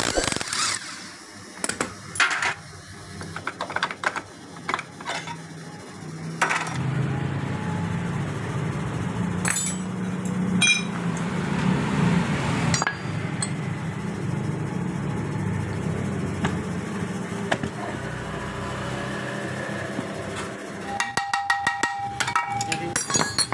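Clinks and knocks of hand tools on the metal casings and parts of a motorcycle engine being taken apart, over a steady low hum. Near the end comes a quick even run of ticks with a ringing tone.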